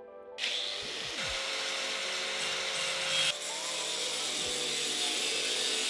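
Angle grinder cutting through a metal shelving bracket clamped in a vise, the disc grinding into the steel and throwing sparks. The harsh grinding noise starts suddenly about half a second in and then runs steadily.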